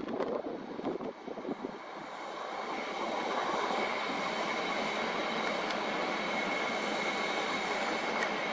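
Steady mechanical running noise, like an engine or machinery, with a thin high whine. It builds over the first three seconds, after some uneven choppy noise, and then holds steady.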